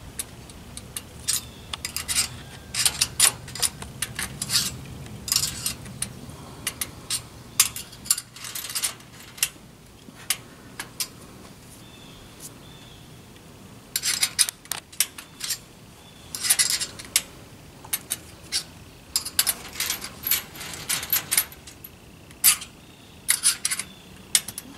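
Steel chain and turnbuckle clinking and jingling in quick irregular clusters as a screwdriver turns the turnbuckle to tension the chain around the tree trunk, with a quieter pause of a few seconds midway.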